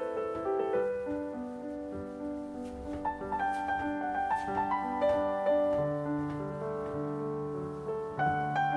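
Background piano music: a slow run of held, overlapping notes.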